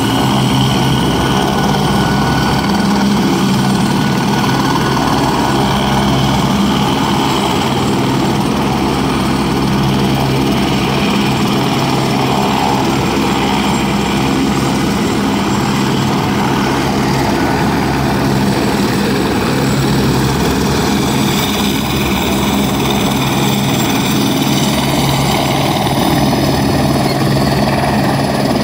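Two Eurocopter AS350 B3 helicopters running on the ground with main rotors turning, a loud steady turbine and rotor sound as they ready for takeoff.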